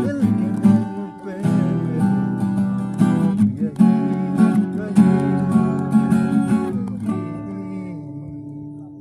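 Acoustic guitar strummed in chords. About seven seconds in the strumming stops and the last chord rings on and fades away.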